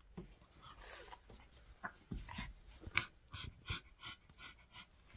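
A 14-year-old Pekingese dog panting quietly in quick short breaths, about four to five a second, from about two seconds in.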